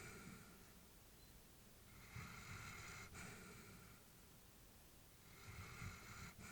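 Elderly Labrador retriever's slow, audible breathing in sleep: a soft, slightly snoring breath roughly every three and a half seconds, each lasting about two seconds.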